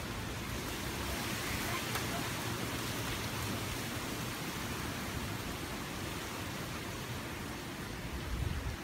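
Steady rain and wind of a hurricane squall, an even hiss, with gusts buffeting the microphone in low rumbles near the end.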